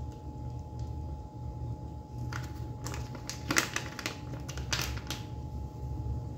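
Small plastic bag crinkling and crackling as it is handled and opened, in a cluster of sharp crackles from about two seconds in to about five seconds, over a steady low hum.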